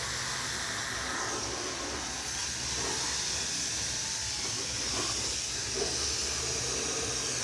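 High-pressure water jet from a pressure washer lance spraying over a tractor, a steady hiss with a low steady hum underneath.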